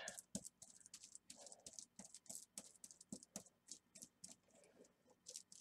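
Faint, quick scratching and crinkling ticks, several a second, from a brush spreading Mod Podge over paper and the plastic sheeting around it.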